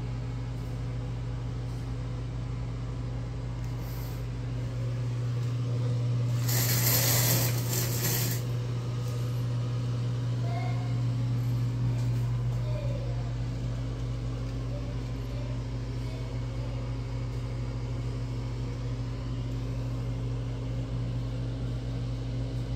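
A steady low mechanical hum runs throughout. About six and a half seconds in comes a two-second rustling scrape as the shower curtain is drawn back along its rod.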